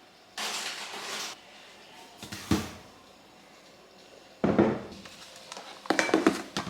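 A few sharp knocks and thuds, like doors or drawers being handled, with a short burst of hiss about half a second in and a quick cluster of knocks near the end.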